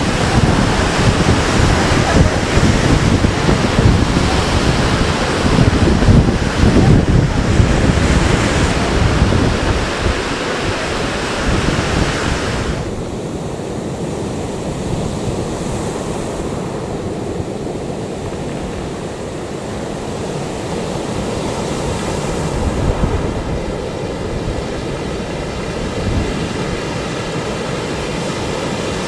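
Storm surf breaking on the shore, with strong wind buffeting the microphone. About thirteen seconds in the sound drops suddenly to a softer, steadier rush of surf.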